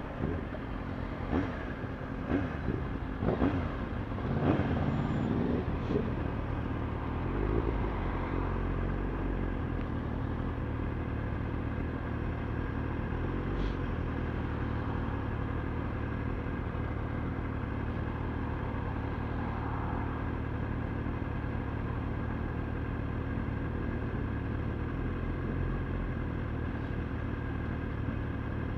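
Kawasaki ZX-6R motorcycle's inline-four engine revving up and down several times in the first few seconds, then running steadily at cruising speed.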